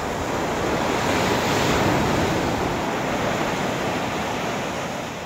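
Sea waves breaking and washing up the beach: one swell of surf noise that builds for about two seconds and then slowly fades.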